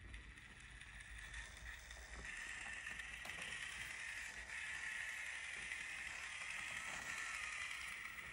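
Traxxas TRX-4M 1/18 scale RC crawler's small electric motor and gear drivetrain whining steadily as it crawls slowly over rocks, getting louder about two seconds in.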